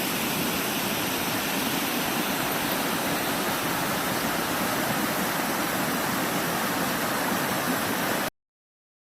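Waterfall: water rushing steadily over rock, a constant rush that cuts off abruptly near the end.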